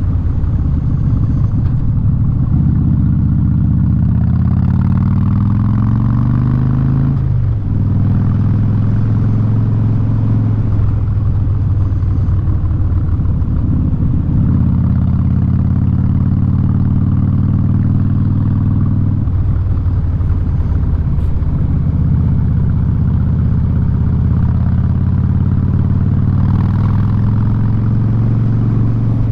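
2017 Harley-Davidson Street Bob's V-twin running loud through a Vance & Hines aftermarket exhaust while riding. The engine note climbs for the first several seconds, drops abruptly about seven seconds in as the rider shifts gear, then runs on with further pitch changes near eleven and nineteen seconds.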